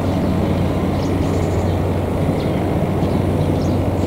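Steady low drone of a diesel locomotive engine running, an even hum that holds level throughout.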